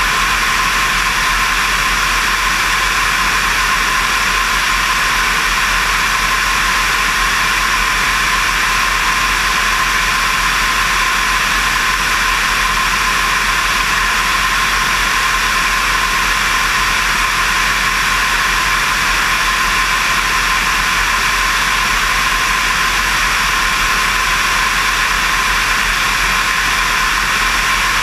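Steady rush of airflow over a wing-mounted microphone, mixed with the drone of a Diamond DV20 Katana's engine and propeller in level cruise flight. There is a constant tone throughout and no change in power.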